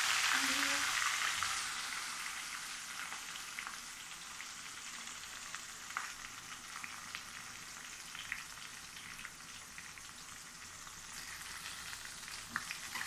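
Onions sizzling in hot oil in a pan. The hiss is loudest just after they go in and settles within about two seconds to a steady sizzle with scattered crackles.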